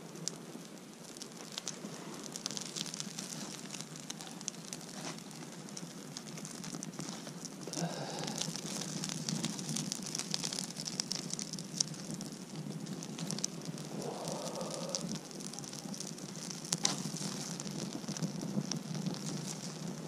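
Small campfire of dry twigs and kindling burning up, with a steady hiss of flame and many sharp crackles and pops. It grows louder about eight seconds in as the fresh kindling catches.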